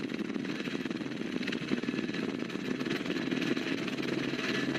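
Aircraft engine running steadily with a fast, even pulsing, heard from aboard.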